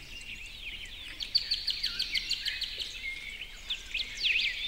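Several songbirds chirping and singing, with a fast run of repeated notes about a second in and quick sweeping calls near the end.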